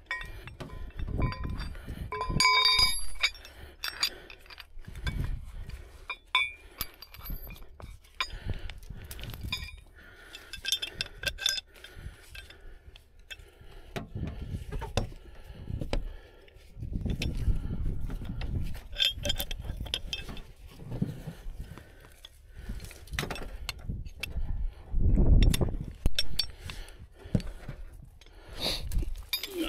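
Steel rigging hardware (a shackle and hooks on recovery straps) clinking and knocking as the straps are rigged on a crashed car, with one bright ringing clink a few seconds in. Dull low thumps and rustling of handling and movement through brush come and go.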